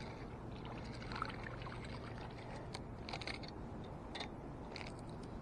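Spinning reel being cranked to land a small chain pickerel: light, irregular clicks and rattles over a steady low background rush.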